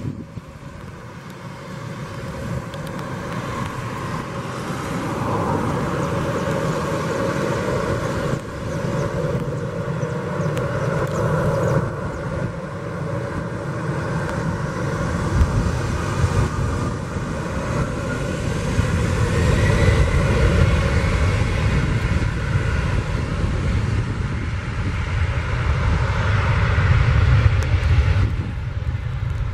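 Twin turbofan engines of an Embraer E-Jet airliner spooling up for takeoff: a steady jet noise that grows louder, with a whine rising in pitch midway through and a deep rumble swelling near the end as the takeoff roll begins.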